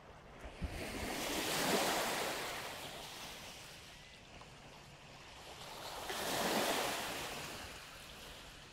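Lake Ontario waves washing onto the shore: two rushing swells, each building and fading over about four seconds, one peaking about two seconds in and the next near seven seconds.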